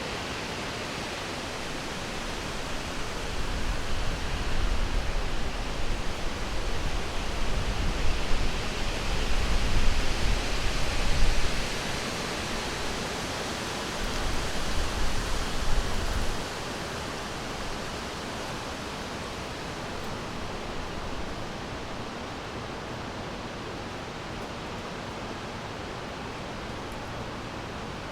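Summer wind blowing through forest trees, a rushing hiss. Gusts swell a few seconds in with a low rumble, are strongest around the middle, then settle to a steadier, quieter rush after about sixteen seconds.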